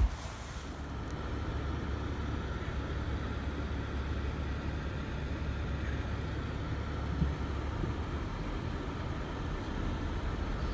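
Steady low rumble of a car driving, heard from inside the cabin. A brief click at the very start.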